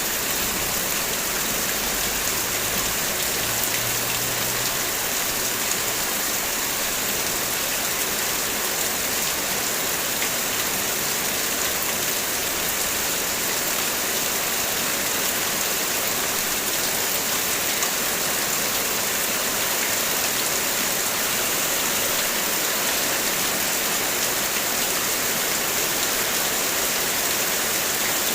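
Heavy rain falling steadily on a car, a dense, even hiss of drops that does not let up.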